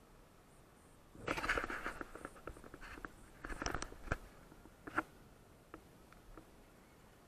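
Two short bursts of scraping and rustling, followed by a few scattered clicks.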